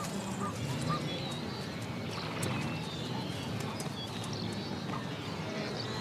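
Wild animal calls: a few short chirps in the first second, over a steady din of low grunting calls and scattered clicks.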